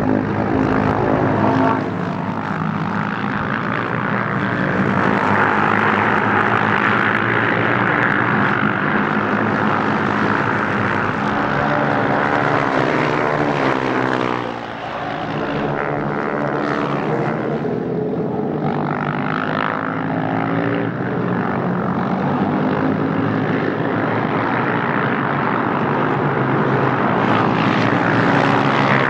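A pack of KTM 690 Duke race motorcycles, single-cylinder four-strokes, running hard at racing speed. The engine notes rise and fall through gear changes and as the bikes pass, with a brief dip about halfway.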